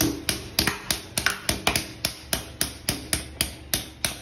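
Small plastic toy hammers knocking on a ball of ice in a plastic tub: a steady run of sharp knocks, about four a second.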